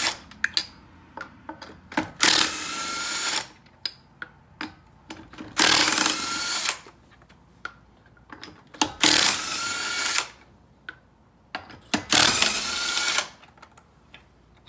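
DeWalt cordless impact wrench hammering lug nuts off a car wheel, in four bursts of about a second each, a few seconds apart. Between the bursts come light clicks and clatter as the nuts and tool are handled.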